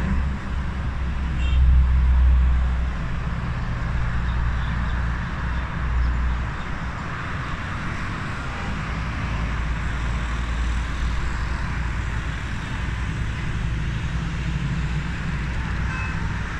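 Steady hum of city road traffic, with a low rumble underneath that is loudest about two seconds in.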